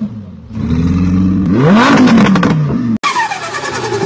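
Car engine revving: a steady drone whose pitch climbs and falls back about two seconds in. After an abrupt cut, a second engine sound follows with its pitch dropping steadily.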